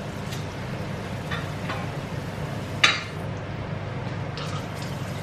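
Steady low hum of a running oven fan, with a few light kitchen knocks and one sharp metallic clank of a stainless steel saucepan about three seconds in.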